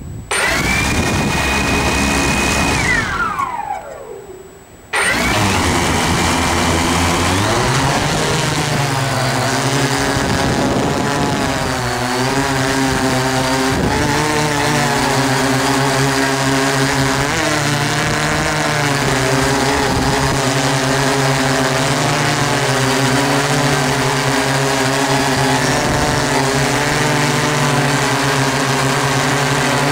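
DJI S800 hexacopter's brushless motors and 15-inch propellers. A high whine glides down and fades in the first few seconds. After an abrupt jump, the motors spin up, rising in pitch about seven seconds in, then hold a steady, slightly wavering hum of several tones in flight, over a haze of wind noise.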